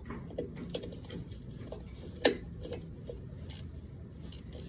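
Small metallic clicks and taps of a brake wheel cylinder's mounting bolts being threaded in by hand, with one sharper click a little over two seconds in.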